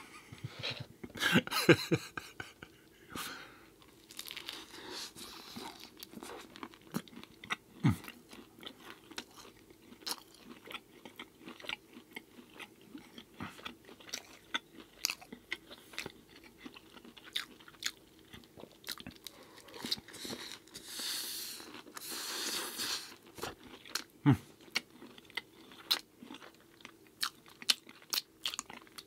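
A person chewing and biting food close to the microphone, with many sharp wet mouth clicks and crunches. A few longer noisy stretches stand out, the largest about two-thirds of the way in.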